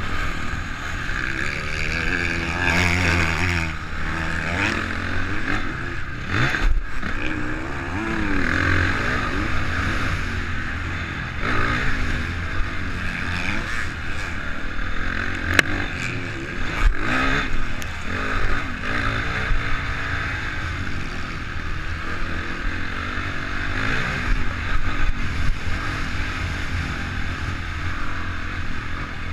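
Honda CRF450 single-cylinder four-stroke motocross engine at race pace, revs rising and falling as the rider works the throttle and gears, heard through a GoPro housing with rushing wind. A few sharp knocks cut through.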